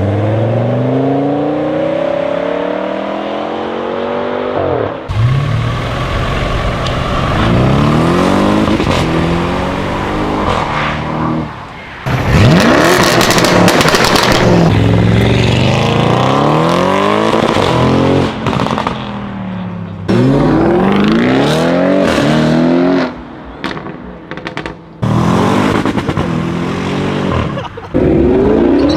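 Audi RS6 engine revving and accelerating hard, its note climbing in pitch again and again, in a string of separate recordings that cut sharply from one to the next.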